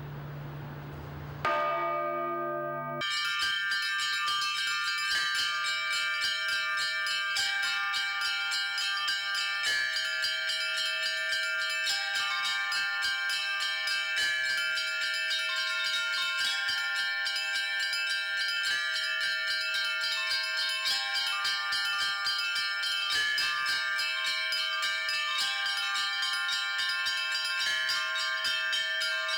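Orthodox church bells ringing: a low rumble gives way about a second and a half in to the first bell strokes. From about three seconds in, many bells are struck in quick succession in a dense, continuous peal, small high bells ringing over a few deeper ones that change note.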